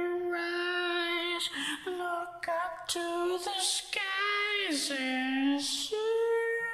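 A single voice singing wordlessly without accompaniment in a high register, holding long notes and sliding between them, with a step up to a higher held note near the end.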